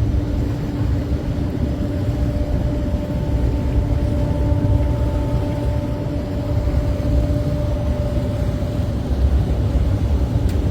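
Cruise ferry's engines running steadily under way: a low rumble with a steady drone of several held tones.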